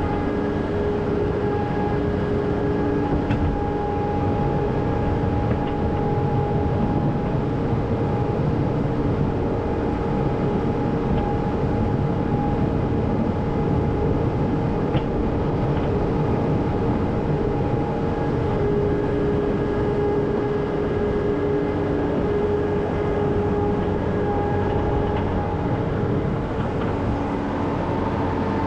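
A machine running steadily, with a low rumble under several held tones that fade in and out.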